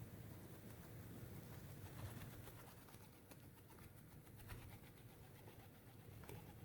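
Quiet winter outdoor ambience: faint footsteps in snow over a low, steady background rumble.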